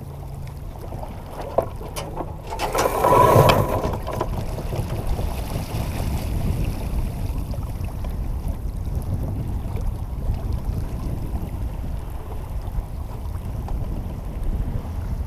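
Wind buffeting the microphone and water rushing past the hull of a sailboat under way, a steady low rumble. About three seconds in, a louder burst of noise lasting about a second, as the boat tacks.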